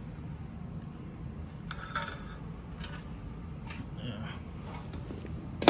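Handling of tool parts and packaging: a few faint clicks and rustles over a low steady background hum, with one sharper click near the end.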